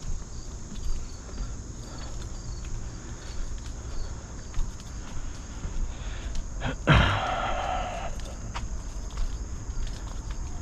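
Knocks and scuffs of a kayak being brought in to a dock and someone getting out and walking, with one louder scrape about seven seconds in. A steady insect trill, typical of crickets, runs underneath.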